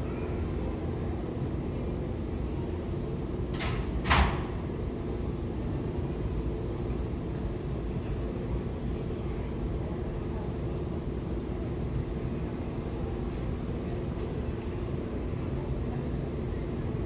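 Steady low rumble with a faint hum, with two short scraping noises about four seconds in, the second one louder.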